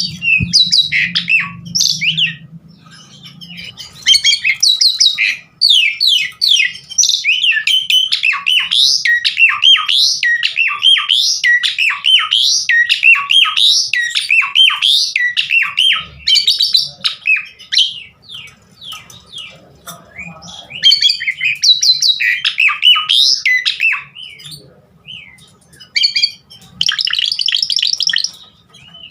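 Asian pied starling (jalak suren) singing in long, fast runs: a varied medley of chirps, whistles and squawks, broken by a few short pauses.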